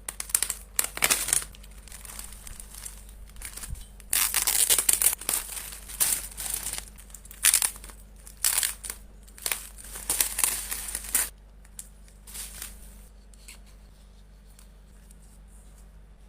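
Photocard packaging being unwrapped by hand: crinkling, rustling and tearing in irregular bursts, dying down to faint handling noises after about eleven seconds.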